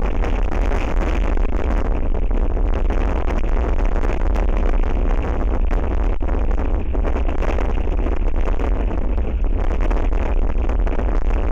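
Strong wind buffeting an outdoor camera microphone: a steady deep rumble with a hissing rush over it.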